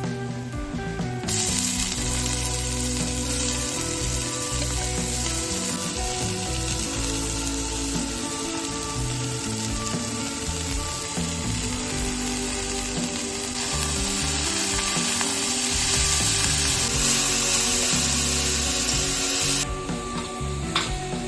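Food sizzling as it fries in hot oil in a pan, starting about a second in and dropping away near the end, over background music.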